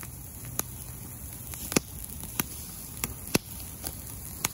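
Campfire burning green grass and leaves, crackling with sharp, irregularly spaced pops.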